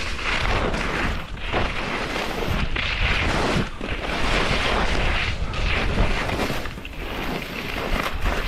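Skis scraping and hissing over hard, wind-packed snow in a run of turns, the hiss swelling and dropping with each turn, over the rumble of wind buffeting the helmet microphone.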